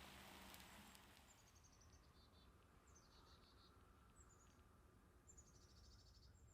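Faint bird song: several short, high trills of rapid notes stepping down in pitch, repeated about once a second.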